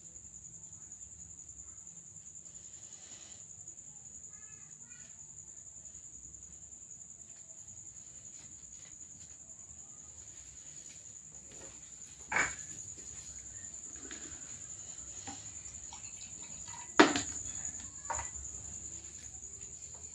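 Steady high-pitched chirring of crickets. In the second half there are two sharp knocks, the second the loudest, followed by a fainter one.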